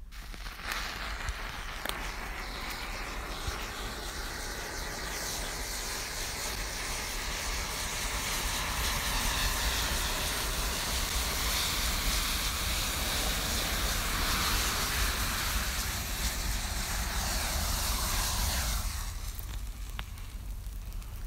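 Matchstick sculpture igniting in a chain reaction, thousands of match heads flaring one after another in a continuous fizzing hiss of fire. It starts about half a second in as the match touches the rim, grows louder through the middle, and drops off sharply near the end as the flare-up settles into steadier burning.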